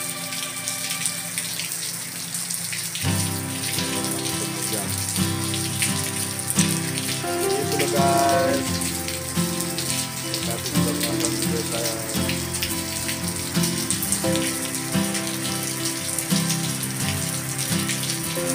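Heavy tropical rain pouring down on leaves, puddles and a flooded lane: a dense steady hiss full of fine drop ticks. Soft background music with held notes plays over it.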